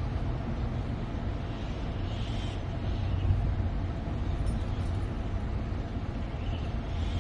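Steady outdoor background noise with a heavy low rumble, with no clear single event standing out.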